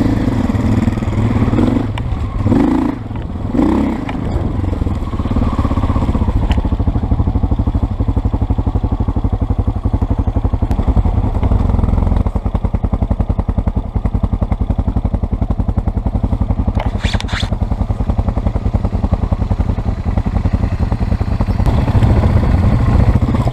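Dirt bike engine running steadily as the bike is ridden, with a few louder swells of throttle in the first few seconds. A brief sharper noise comes about two-thirds of the way through.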